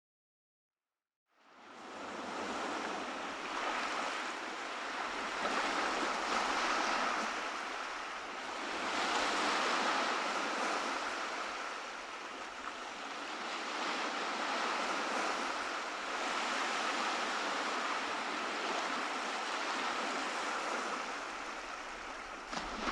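Ocean surf breaking and washing on a beach. It fades in after about a second of silence and then runs as a steady rush that swells and eases slowly with the waves.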